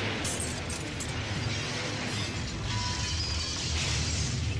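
Film soundtrack music mixed with the crashing and scraping of a van rolling over in dirt, with a sharp impact right at the start.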